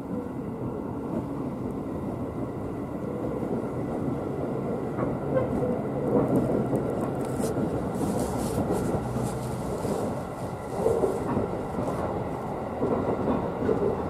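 Cabin running noise of a JR 211 series 3000 electric multiple unit pulling away from a station: a steady rumble of wheels and running gear that grows a little louder as the train gathers speed.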